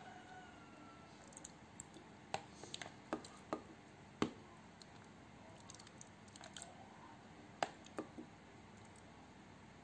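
Scattered short sharp clicks and taps, about eight of them, the loudest about four seconds in, as cubes of green coconut-pandan agar jelly are added to a glass bowl of creamy buko pandan sauce.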